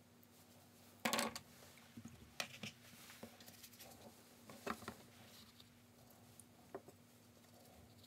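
Painting tools handled on a wooden tabletop: a knock about a second in, then a few lighter clicks and taps as a brush is picked up and worked over the watercolour paper.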